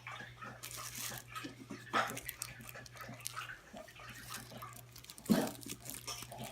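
A dog lapping water from its bowl: a run of short, irregular laps over a steady low hum.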